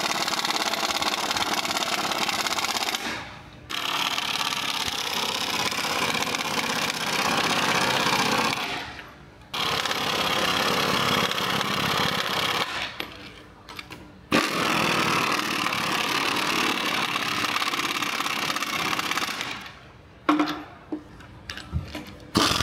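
Pneumatic impact wrench running in four long bursts of several seconds each, with short pauses between, as it drives the stator clamp-ring bolts of a progressive cavity pump tight, followed by a few brief blips of the trigger near the end.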